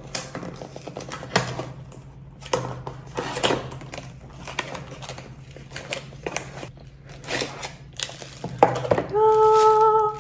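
Camera box and packaging being opened and handled: scattered rustles, taps and clicks over a low steady hum. About nine seconds in, a steady pitched tone is held for about a second.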